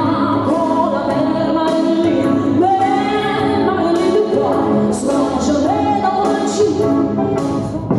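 A woman singing live into a microphone over a musical accompaniment, holding long notes in a slow melody.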